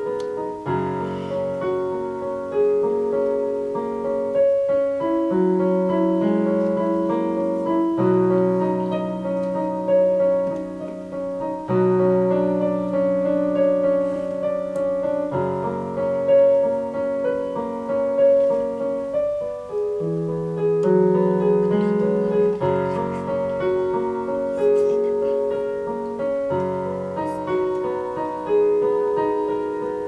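Solo piano piece played on a digital piano: flowing, repeated figures over held bass notes, with the harmony changing every few seconds.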